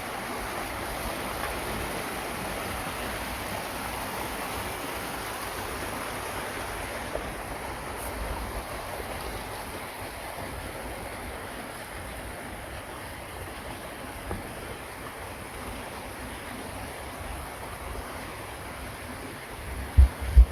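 Waterfall water rushing steadily. Wind buffets the microphone with loud low rumbles just before the end.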